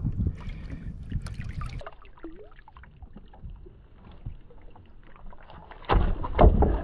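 Wind rumbling on the microphone over water moving around a kayak at sea, easing off about two seconds in, with a few faint clicks. A loud low rumble comes near the end.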